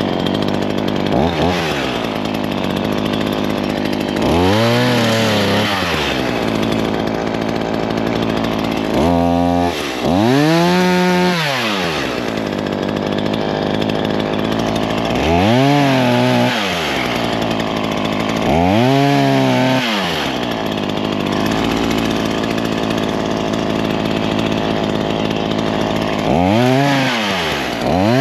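Chainsaw cutting small branches from a fallen tree. The engine runs steadily and is revved up and back down about six times, each rise lasting a second or two.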